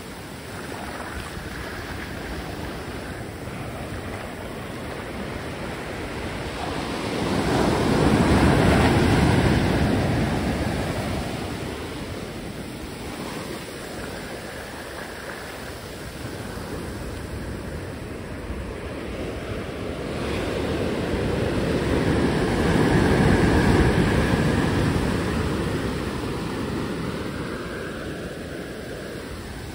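Ocean surf washing up onto a sandy beach: a steady rush of foaming water, swelling twice with louder waves breaking and running up the shore, about a quarter and three-quarters of the way through.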